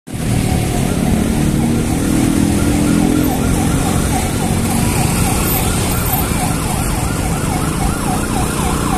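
A siren-like alarm tone, warbling rapidly up and down in pitch about three times a second, over a steady low engine rumble.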